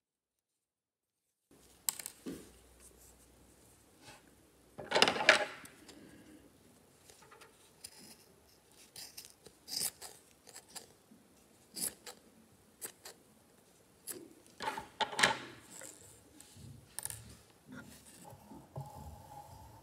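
Scissors snipping fabric, with rustling and small clicks of fingers handling the cloth between cuts; the loudest bursts of snipping come about five seconds in and again about fifteen seconds in, after near silence at the start.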